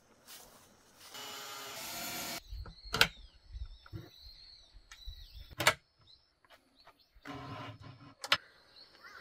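A small power tool whirring in two short runs, with three sharp knocks of wooden panels being handled during the assembly of a wooden box.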